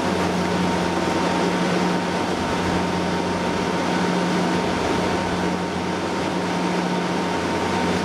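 Panasonic microwave oven running: a steady mains-transformer hum under an even fan rush, with a faint steady high tone.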